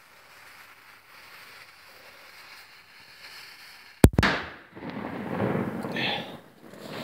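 One sharp, loud blast about four seconds in from an explosive charge set off against a boulder to split it, followed by a couple of seconds of noisy rumbling and settling debris. The rock does not crack.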